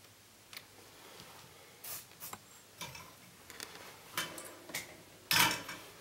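Small hand tools being handled at a repair bench: irregular light clicks and short scrapes, the loudest a brief scrape about five and a half seconds in.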